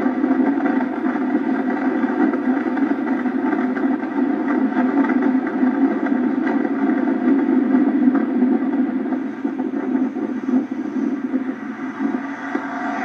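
A car at speed: engine running steadily with wind and road noise rushing past a camera mounted on the outside of the car. It eases off and gets quieter over the last few seconds as the car swings through a turn.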